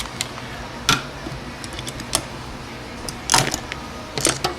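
A handful of sharp metallic clicks and clinks, about four main ones with the loudest about three seconds in, from an Allen wrench and bike frame bolts being handled and set against the frame.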